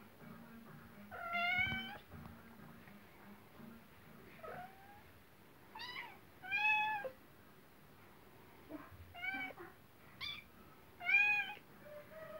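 Cat meowing repeatedly: about half a dozen short meows spaced through, with a couple of fainter ones between, the loudest near the end.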